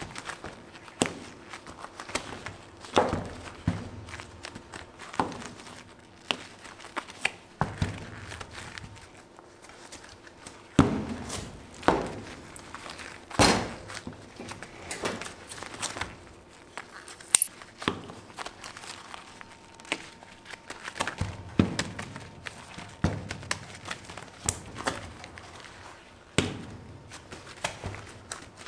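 Irregular dull thumps and soft knocks as gloved hands press, fold and slap a warm slab of red hard-candy mass against a work table, with a few louder thumps about halfway through.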